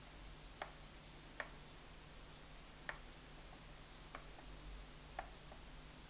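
Faint, irregular small clicks, about one a second, as a hot glue gun is worked around a ring of ironed plastic perler beads: the gun and nozzle knocking lightly against the plastic while glue is laid on.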